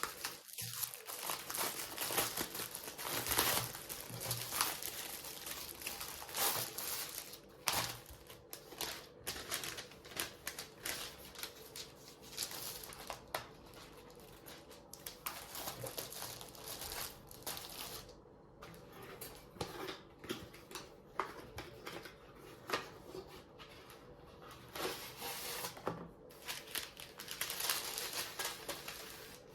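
Parcel packaging being unpacked by hand: plastic and paper crinkling and rustling, with tearing and irregular handling clicks.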